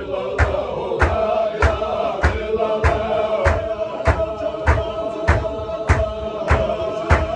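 Men's group chanting of a Chechen Sufi zikr, the voices holding a steady drone, with a sharp, even beat of stamping feet and clapping hands about every 0.6 seconds.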